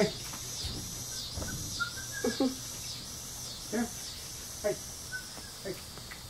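Beagle puppies giving short yips and whines about half a dozen times while they play. Behind them is a steady high pulsing buzz, about two pulses a second, that evens out near the end.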